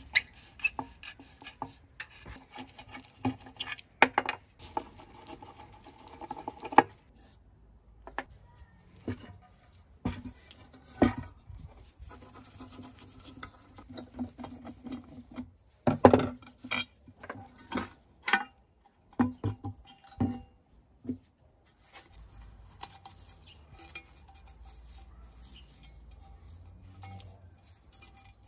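Metal parts of a vintage electric fire bell being dismantled with a screwdriver and by hand: irregular clinks, knocks and scrapes of steel on steel, a few sharper knocks ringing briefly.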